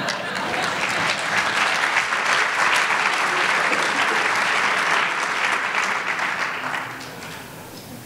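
A large audience applauding, a dense steady patter of many hands clapping that dies away about seven seconds in.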